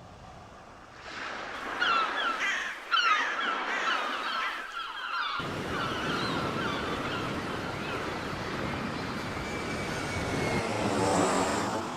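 Several bird calls, repeated curving cries, about two seconds in, then a steady rushing like surf that swells near the end and fades away.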